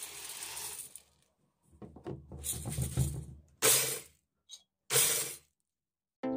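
Dried corn kernels poured into a stainless-steel teapot, pattering against the metal. Then kernels rattle and clatter in the pot, and two short loud spells of about half a second each come as an angle grinder whirls the kernels inside.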